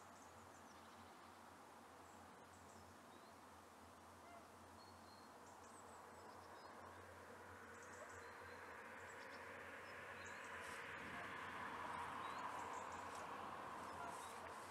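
Faint outdoor ambience with scattered short bird chirps over a low steady background noise. A broad rushing noise swells in the second half and peaks a few seconds before the end.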